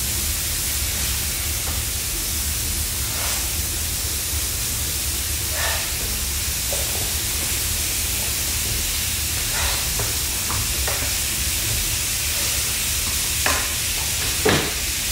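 Beef burger patties sizzling steadily on a hot electric griddle, with a few short scrapes and taps of a spatula, the loudest near the end.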